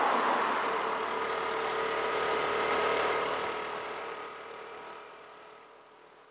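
Motorcycle riding through road traffic: a rush of road noise with a steady engine hum that is loudest over the first few seconds, then fades away.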